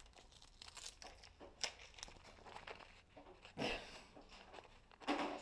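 Painter's masking tape being pulled off its roll and pressed around a cardboard toilet-paper tube: faint crinkling and rustling, with louder bursts about a second and a half in, midway and near the end.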